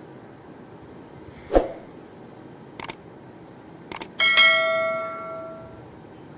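Metal kitchen utensils knocking during cooking: a dull knock, a couple of light clicks, then a metal vessel or utensil struck so it rings with a bell-like tone that fades over about a second and a half.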